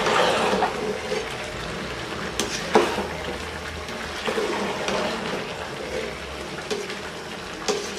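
Rice, chicken and peas bubbling at the boil in a pot of biryani, cooking down in their water shortly before being set on dum. A slotted metal spoon stirs through the rice, clinking against the pot a few times.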